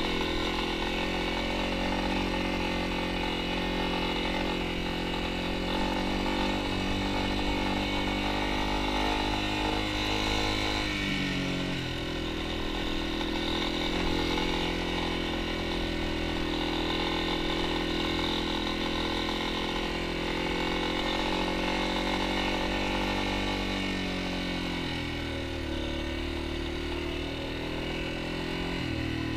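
Yamaha XT250's single-cylinder four-stroke engine running steadily under way, its pitch dropping about a third of the way through and again near the end as the revs fall.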